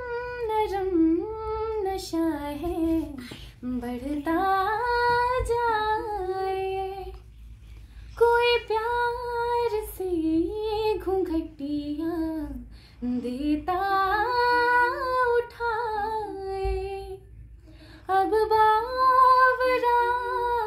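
A high female voice singing an unaccompanied melody in long phrases, with short breaks between them.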